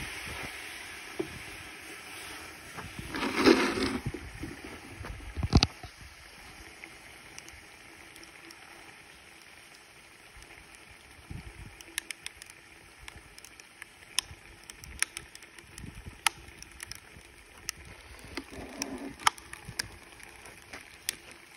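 Liquid nitrogen boiling under a plastic ice-cube tray: a hiss that dies down, a loud burst of bubbling about three seconds in and a sharp knock soon after. Later come scattered sharp ticks and cracks over a quieter bubbling.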